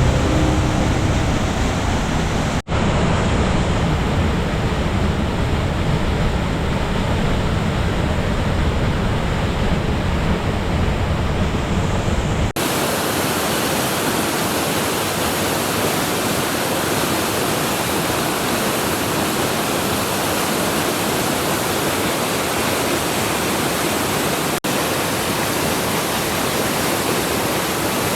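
A waterfall in heavy spate after days of rain, its water crashing down in a loud, steady rush. Two brief dropouts break it, and after the second the deep rumble gives way to a brighter hiss.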